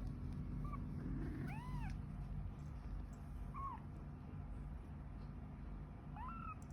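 A cat mewing faintly: four short, high mews spread a second or more apart, over a low steady hum.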